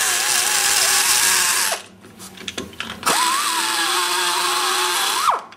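Die grinder with an aluminum cutter grinding excess poured aluminum out of the exhaust port of a cast-iron big-block Chevy cylinder head: a steady high whine with hiss. It is released and winds down about two seconds in, runs up again a second later, and is released again near the end.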